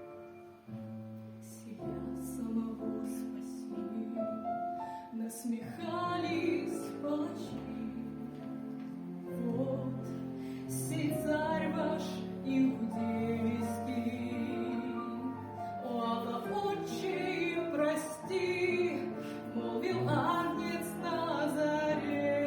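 Christian song: a solo voice enters about five seconds in, singing with vibrato over steady instrumental accompaniment.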